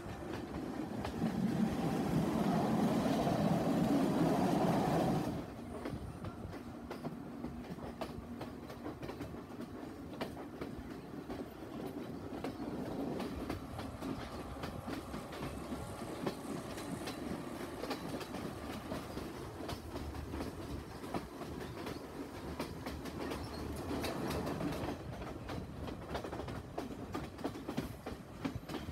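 Passenger train running, heard from the side of a carriage: a steady rumble with frequent wheel clicks over the rail joints. It is louder for the first few seconds and drops suddenly about five seconds in.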